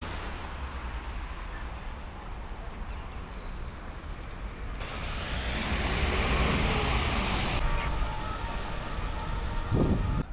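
Street traffic on a wet road. A city bus passes about halfway through, its engine and the hiss of tyres on wet asphalt loudest for a couple of seconds. A short rising swell of engine noise comes near the end.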